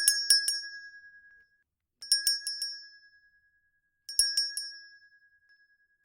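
A bright chime sound effect: three bursts of four quick clinks, about two seconds apart, each leaving a ringing tone that fades away.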